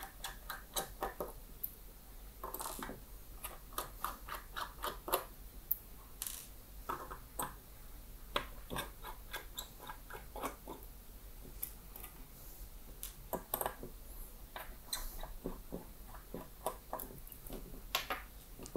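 Small screws being backed out of a mini PC's aluminium-alloy bottom plate with a small screwdriver: irregular light clicks and ticks, some in quick runs, as the tool turns and the loose screws are handled on the desk.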